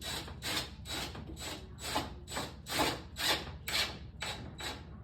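Hand work on wooden furniture: quick back-and-forth rubbing strokes, about two a second, stopping near the end, as in sanding or scrubbing by hand.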